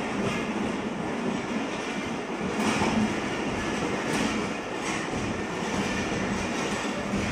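Passenger coaches of a departing train rolling past at close range: a steady rumble of steel wheels on the rails, with a few sharper clacks as the wheels cross rail joints.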